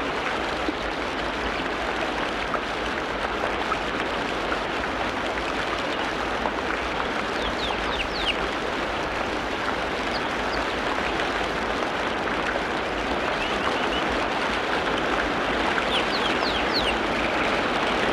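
Forest ambience: a steady rushing noise, like running water, with a few quick high bird chirps about halfway through and again near the end.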